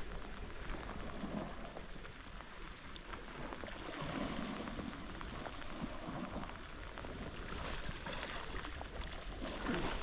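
Steady rain falling, an even hiss with many small drop ticks close by.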